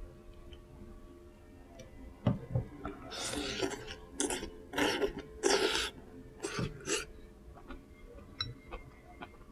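A person slurping ramen noodles in about five loud sucking bursts, preceded by two dull knocks.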